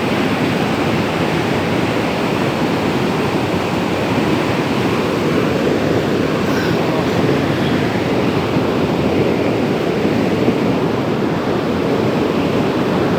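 Mountain river rushing: a loud, steady roar of running water.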